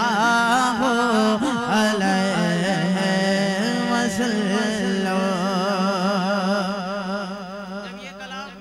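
A man singing a naat (Urdu devotional poem praising the Prophet) unaccompanied into a microphone, drawing out long, wavering, ornamented notes. The voice fades away over the last second or two.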